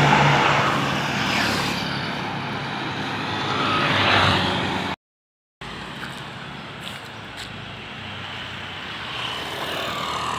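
Road traffic passing close by: one vehicle's engine and tyre noise swelling and fading at the start, another passing about four seconds in. Just after five seconds the sound cuts out completely for about half a second, and lower, steady traffic noise follows.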